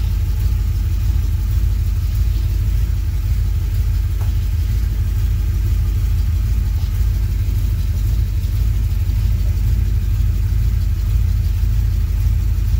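1978 Jeep J-series pickup's engine running during a slow test drive: a steady low rumble with no marked revving or change.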